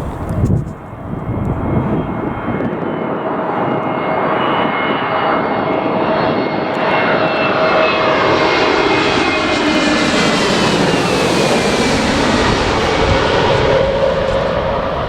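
Airliner on final approach passing low overhead, its engine tones slowly falling in pitch as it goes by and its noise loudest about ten seconds in. A brief gust of wind buffets the microphone at the start.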